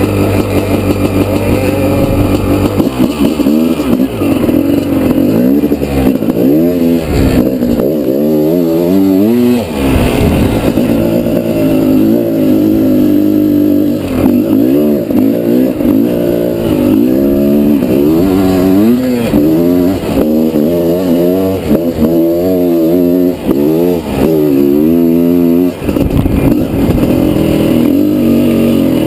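Honda CR500R two-stroke single-cylinder motocross bike being ridden hard, its engine revving up and falling back again and again as the throttle is worked, steadier for the first few seconds and near the end.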